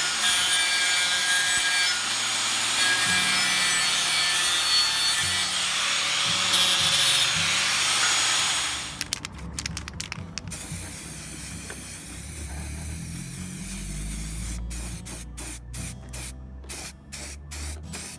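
Angle grinder running against a steel wheel rim: a harsh grinding with a high whine for about the first nine seconds, then it stops. After that come quieter, irregular sounds with runs of rapid clicks.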